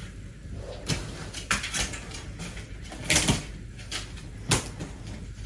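Hard plastic clacks and knocks as a hinged plastic clothes-folding board is handled and its panels are flipped open flat, the loudest pair about three seconds in.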